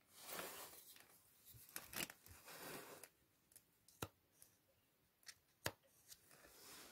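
Faint handling sounds as a hand works a marker pen against a diesel engine block: soft rustling swishes, with a few sharp clicks about two, four and five and a half seconds in.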